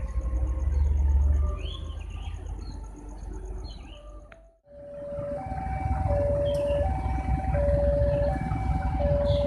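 Railway level-crossing warning alarm sounding its two-tone signal, alternating high and low notes about every 0.7 s, the sign that a train is approaching, over a low rumble of traffic. Birds chirp in the first half, and the sound drops out for a moment about four and a half seconds in before the alarm comes back loud.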